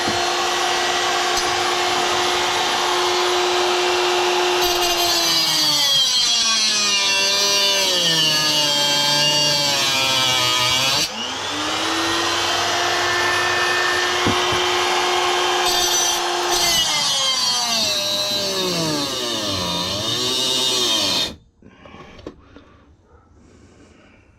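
Electric grinder whining at full speed, its pitch sagging and wobbling twice as it is pressed into the magnetron's metal. It stops for a moment, spins back up, then shuts off near the end, followed by faint clatter of parts being handled.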